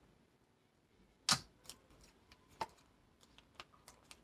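Tarot cards being handled and shuffled by hand: a few separate light clicks and taps of the cards, the loudest about a second in.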